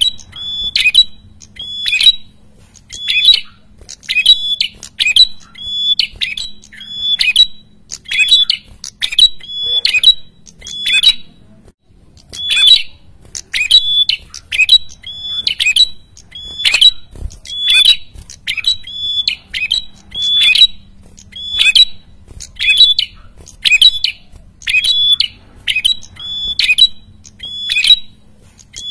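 A caged prenjak kepala merah calling noisily and without letup: a fast run of short, sharp, high calls, about one to two a second, with one brief pause about twelve seconds in.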